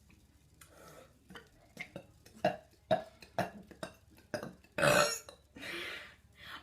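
A girl burping after gulping soda: a string of short sounds, then one loud, longer burp about five seconds in.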